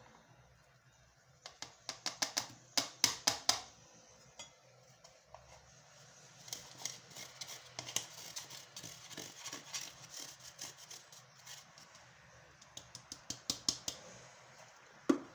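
Nigella (black seed) seeds being ground in a small grinder: bursts of rapid clicking and crunching, then a scratchy rhythmic grinding, with one louder knock near the end.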